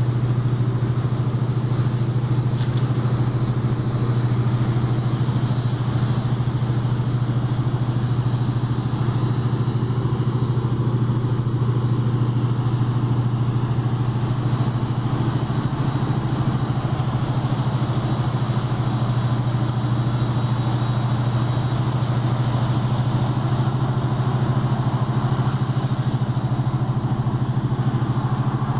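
A steady low engine-like hum running at an unchanging pitch and level.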